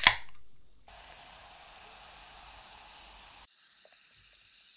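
An aluminium cola can snapping open with a hiss, then cola poured over ice into a glass mug, fizzing steadily until the pour stops abruptly. A fainter fizz of the carbonation follows.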